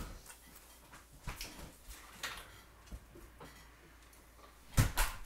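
Faint, scattered clicks and rustles of someone moving about, then a single loud thump near the end.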